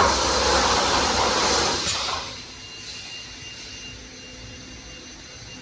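Automatic welded wire mesh welding machine running: a loud hissing rush for about two seconds, then a quieter steady machine noise.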